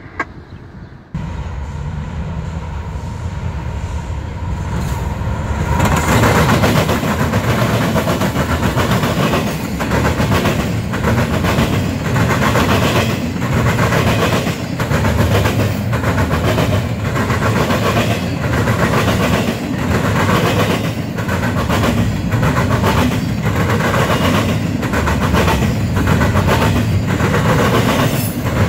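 CSX intermodal freight train passing. Starting about a second in, a low locomotive rumble builds. From about six seconds in, the cars roll by with a steady run of regular wheel clacks.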